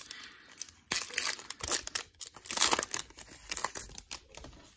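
Foil trading-card pack wrapper being torn open and crinkled, in several irregular crackling bursts, loudest about a second in and again near the three-second mark.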